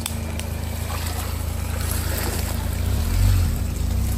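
Ford Bronco Sport SUV's engine running low and steady as it crawls over a muddy forest trail, with a brief swell about three seconds in.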